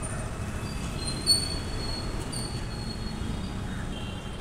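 Goods train wagons rolling past with a steady low rumble, and short high-pitched wheel squeals over it, the loudest about a second in.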